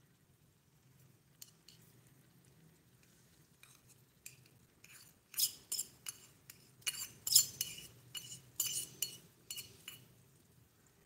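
A small stainless-steel bowl clinking and scraping against a miniature steel pot as rice is tipped and pushed out of it. It is a quick, uneven run of light metal clinks that starts about five seconds in and stops near the end.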